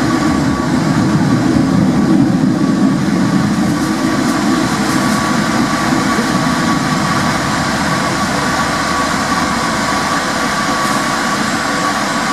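Porto Metro light-rail tram running along its track, heard from inside the car: a steady rumble with a thin, steady whine above it.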